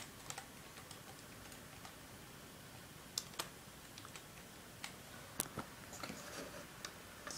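Faint, scattered key presses on a USB computer keyboard: single clicks a second or so apart, coming a little quicker near the end.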